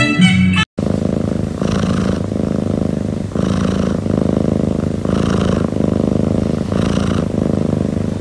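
A short guitar music tail cuts off within the first second. Then a Siamese cat purrs loudly and steadily, the purr swelling in a regular rhythm about every second and three-quarters.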